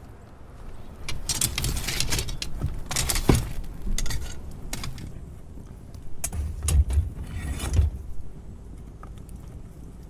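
Irregular metallic clinks, knocks and scraping as heated metal irons and a bamboo flute are handled while its finger holes are burned through.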